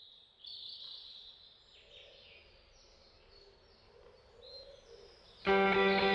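Faint outdoor ambience of high, thin chirring calls, held for about a second at a time. Loud strummed electric guitar music cuts in about five and a half seconds in.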